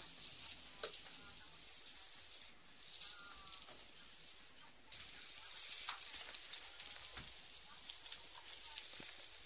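Faint crackling hiss with many scattered light ticks.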